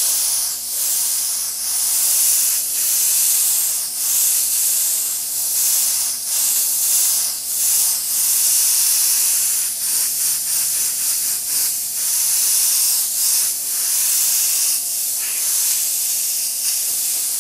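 Gravity-feed airbrush hissing as it sprays white paint in repeated passes. The hiss breaks off briefly every second or two between strokes.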